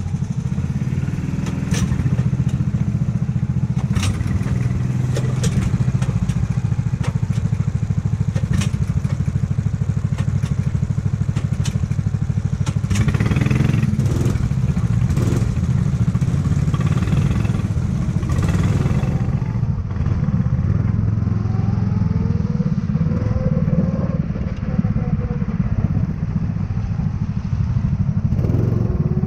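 Go-kart engine running steadily, with scattered sharp clicks and knocks in the first half and its pitch rising and falling a few times from about the middle on.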